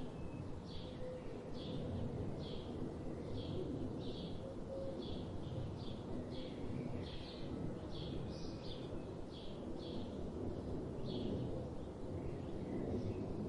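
A bird chirping over and over in short high notes, about one to two a second, thinning out near the end, over a steady low background rumble.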